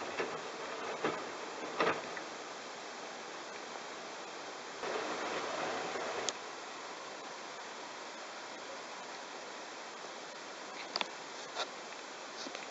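Bosch washing machine washing a load of towels: steady water swishing from the turning drum, louder for about a second and a half some five seconds in, with a few short knocks near the start and near the end.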